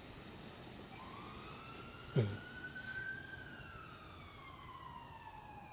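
A distant siren wailing: one slow rise in pitch, then a long gradual fall. A brief low thump comes about two seconds in.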